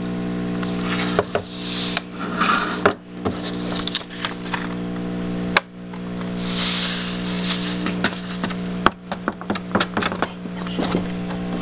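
Glitter shaker and stiff craft paper handled on a tabletop: glitter pattering out, paper rustling as it is lifted and tilted to shake loose glitter off, with scattered taps and knocks. A steady hum runs underneath.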